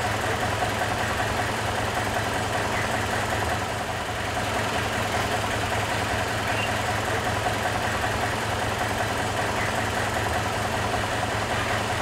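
A steady mechanical drone, like an engine running at idle, unchanging throughout.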